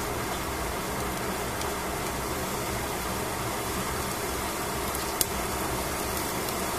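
Steady hiss of vegetables steaming and sizzling in a covered pan, with one sharp pop about five seconds in.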